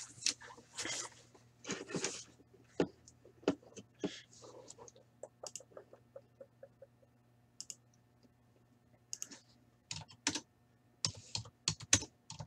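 Typing on a computer keyboard: quick, irregular keystrokes, thinning out in the middle and picking up again near the end.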